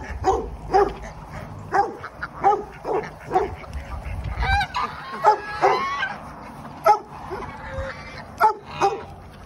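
African geese honking, short calls repeated about twice a second, with a longer stretch of quick calls near the middle.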